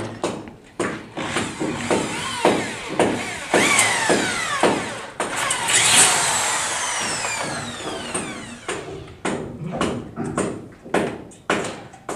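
Corded electric drill boring into a steel ceiling channel, whirring and winding down with falling whines, among sharp clicks and knocks of metal framing. Near the end, clacks as a hand rivet gun sets blind rivets.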